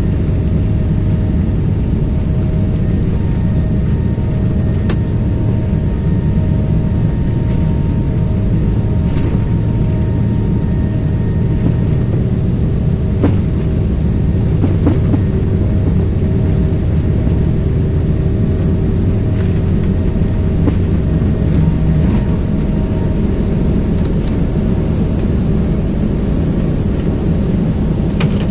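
Steady airliner cabin noise in flight: a loud, even low rumble of the engines and airflow with a faint constant hum on top, and a few faint clicks.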